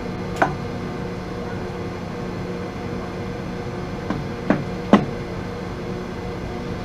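Pratt & Whitney Model B lathe running with a steady hum. Four short sharp knocks: one near the start and three close together about four to five seconds in.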